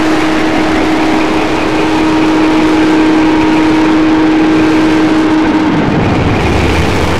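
Loud, dense distorted electronic noise from an electronic heavy metal / dark ambient track, with one steady held tone through it. About six seconds in the tone slides down and a deep bass note comes in.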